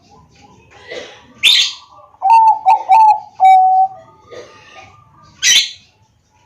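Zebra dove (perkutut bangkok) cooing its song: a quick run of short clipped notes and then one longer held note, about two to four seconds in. Two sharp high chirps come about a second and a half in and near the end.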